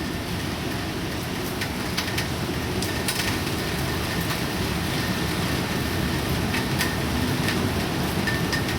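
Typhoon wind and rain: a steady rushing noise with a heavy, unsteady low rumble and scattered sharp ticks.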